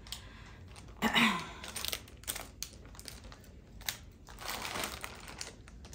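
Thin plastic packaging crinkling in irregular bursts as a small bagged item is handled and opened. A brief murmur from a woman's voice, falling in pitch, about a second in.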